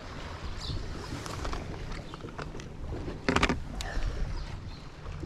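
Water lapping against a bass boat's hull, with wind on the microphone and a short, sharper sound about three seconds in.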